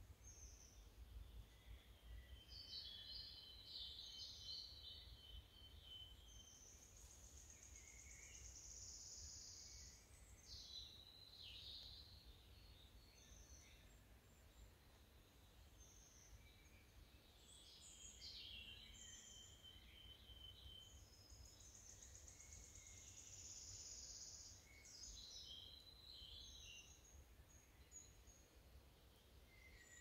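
Faint songbirds singing, with several separate phrases of chirps and high trills coming and going, over a low steady rumble.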